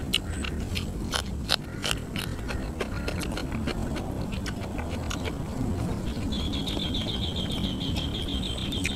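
Crisp snaps and crackles of fresh herbs and grilled catfish being torn apart by hand, several sharp cracks in the first two seconds and then quieter picking. About six seconds in, a rapid high trill starts up and runs on steadily over a low outdoor rumble.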